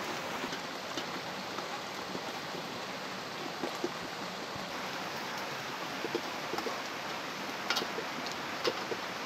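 Steady rush of running stream water, with a couple of sharp clinks of a spoon against a metal bowl near the end as batter is stirred.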